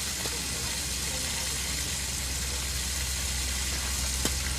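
Rain hissing steadily over the low hum of an idling vehicle engine, with one sharp click near the end.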